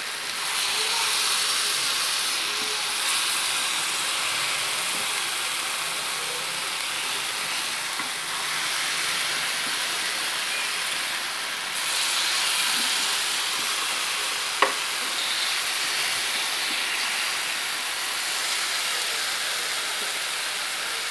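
Paneer cubes glazed with honey teriyaki sauce sizzling steadily on a hot black grill pan over a full flame, with a spatula scraping as the pieces are turned. There is one sharp tap about fifteen seconds in.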